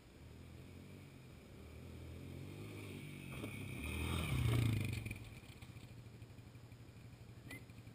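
Four-wheeler (ATV) engine approaching, passing close by and fading away, loudest about four and a half seconds in. Its tyres slide through dry leaves and dirt as it drifts past.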